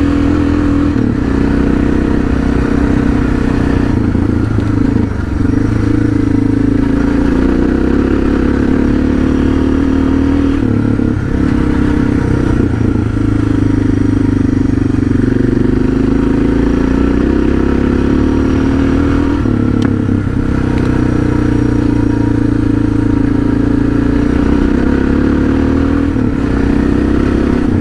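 Suzuki DR650's single-cylinder four-stroke engine running steadily while riding on the road, with a few brief dips in the note.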